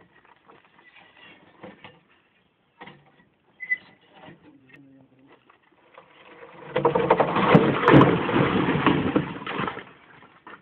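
Steel pry bars scraping and clicking against a large cut block of grey quarry stone, then about six and a half seconds in the block topples off the rock bench and crashes down. It is a loud crash of breaking and sliding rock that lasts about three seconds.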